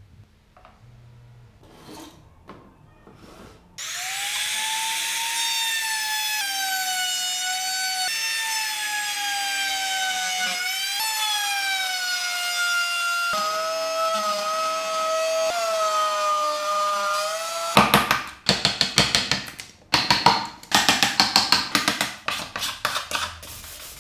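Faint knocks of wooden pieces being fitted together, then about four seconds in a handheld Ingco trim router starts and runs with a steady high whine that sags slightly in pitch as it cuts into the wood, stopping about eighteen seconds in. Then sandpaper rubbing on wood by hand in quick rasping strokes, about two a second.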